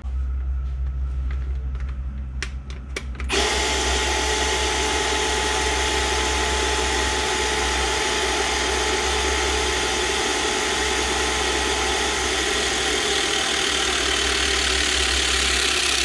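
Milwaukee M18 12-tonne battery hydraulic cable crimper running through a crimp on a copper cable lug: a low motor hum, then about three seconds in a much louder, steady whine with hiss that holds until it cuts off.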